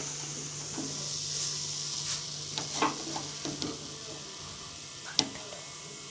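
Grated beetroot sizzling in a hot kadai, with a few clinks and scrapes of a spoon against the pan. The sizzle eases off a little toward the end.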